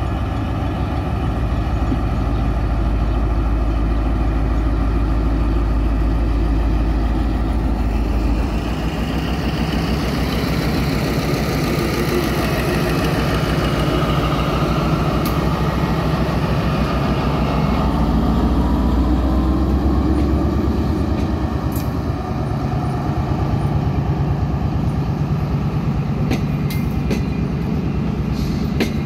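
CNR CKD8H diesel-electric locomotive's engine running loud and steady while hauling a passenger train away from a station. Its note changes about eight seconds in and again around twenty-two seconds, with a higher whine between about eight and sixteen seconds and a few sharp clicks near the end.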